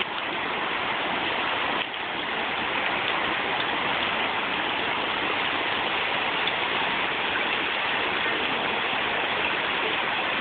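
Shallow river water of the Virgin River rushing over stones and cobbles, a steady, even hiss of flowing water.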